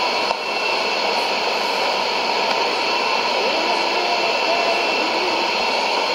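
Weak AM shortwave signal from a Sony ICF-2001D receiver on 15560 kHz: steady hiss and static, with faint, unintelligible programme audio under the noise.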